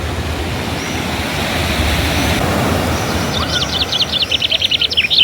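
A steady outdoor rushing noise like surf or moving water. From about three seconds in, a bird sings a rapid run of short, high chirps.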